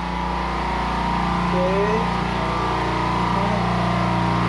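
Tugboat engine-room machinery running with a steady low drone, growing louder over the first second or two and then holding even.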